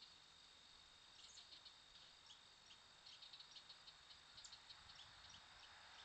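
Faint outdoor ambience: a steady high-pitched drone with scattered clusters of short high chirps.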